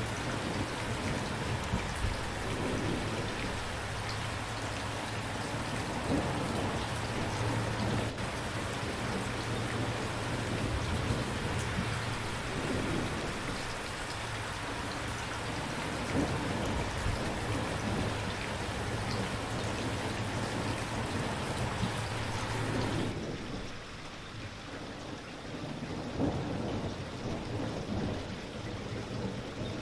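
Steady rain falling, a dense even hiss with a low rumble underneath. About 23 seconds in the sound changes suddenly, becoming quieter and duller as the bright top of the hiss drops away.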